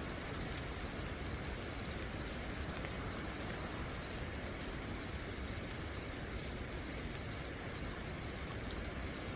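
Steady rain falling at night, with a cricket singing a high, evenly pulsed trill over it.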